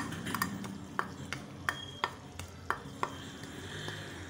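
Pot of chicken gravy sizzling on the heat as green chili paste is tipped and scraped in from a ceramic bowl, with a run of sharp clicks and taps, about three a second.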